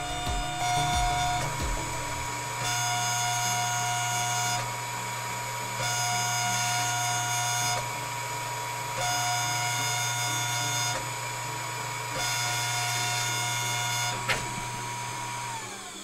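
High-speed spindle of a CNC engraving machine whining steadily as it cuts a gold bangle. A second, lower machine whine comes in for about two seconds at a time, roughly every three seconds. There is a single sharp click near the end, and then the spindle winds down.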